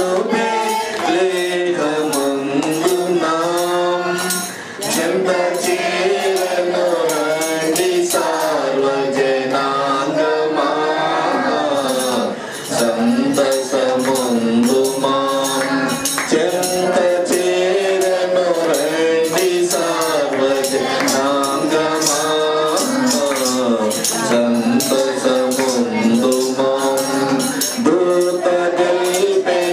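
A man singing a Telugu Christian song through a microphone, with jingling hand percussion keeping a steady beat. The singing pauses briefly twice, near the start and about halfway.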